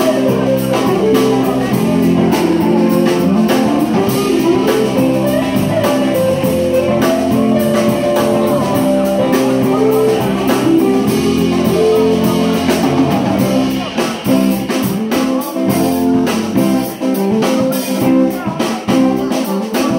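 Live rock band playing: electric guitar and electric bass over a drum kit, steady and loud. About two-thirds of the way through, the bass thins out and the playing turns choppy, with short breaks between hits.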